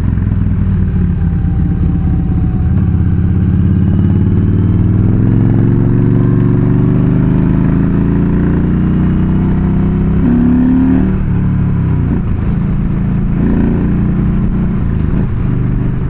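Yamaha V Star 1300's V-twin engine pulling as the motorcycle accelerates. Its pitch rises steadily for several seconds, then drops back about ten seconds in and holds steady.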